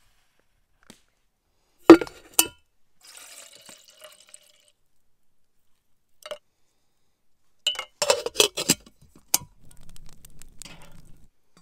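Small metal camp kettle: two sharp clinks of its lid and handle, a faint pour of liquid into it, then a cluster of quick clinks and taps about eight seconds in as spices and a cinnamon stick go into the pot.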